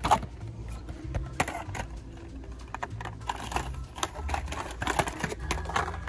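Plastic blister-packed toy cars clacking and rustling against each other and against metal peg hooks as a hand flips through them on a store pegboard. It is an irregular string of sharp clicks, the loudest right at the start.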